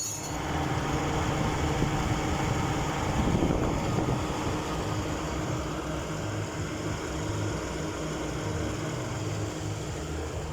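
An engine running steadily, with a short click right at the start and a brief swell about three to four seconds in.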